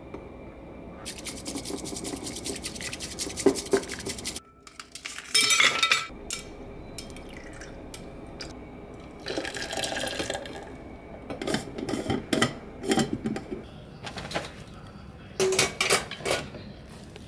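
Kitchen sounds in several bursts: cutlery and dishes clinking, with liquid being poured.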